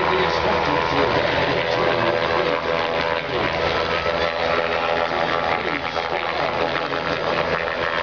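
Bell 206 JetRanger helicopter hovering low: a steady beat of the two-bladed main rotor over the whine of its turbine engine, unchanging throughout.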